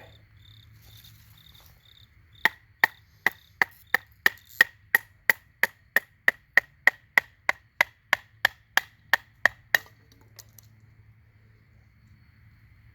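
A piece of fatwood being split with a blade: about twenty sharp, evenly spaced knocks at just under three a second, each with a short ring, which stop a little before the end.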